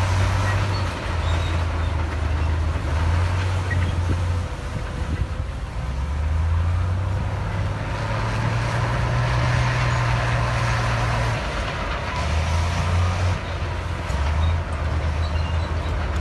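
Heavy diesel engine of earthmoving machinery running under varying load: its low drone steps up in pitch about halfway through, holds for a few seconds, then falls back, over a steady mechanical clatter and rumble.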